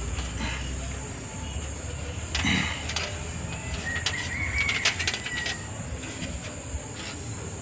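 Steady high insect trill in the background, typical of crickets. Over it come a short burst about two and a half seconds in, then a thin whistled tone with several sharp clicks about four to five seconds in.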